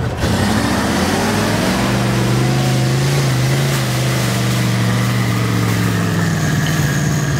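Off-road trial truck's engine revving up over about the first two seconds, then held at high revs under load and easing off slightly near the end.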